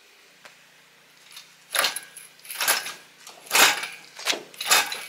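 Red hydraulic engine hoist being pumped while it lifts an engine and gearbox out of a car: four metallic rattling, jangling bursts about a second apart, starting nearly two seconds in, with a sharp click between the last two.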